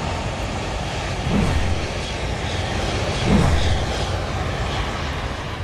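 Jet aircraft engines running: a steady rumble and hiss that slowly falls away.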